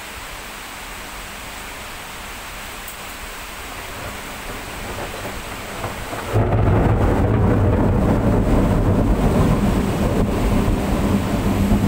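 Heavy rain falling as a steady hiss, then about six seconds in a sudden loud, low rumble of thunder that rolls on for several seconds.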